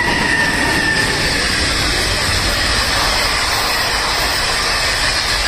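HXD2B electric freight locomotive passing close, with a high whine that fades about a second in, then its train of boxcars rolling by with a steady wheel-on-rail rumble and rattle.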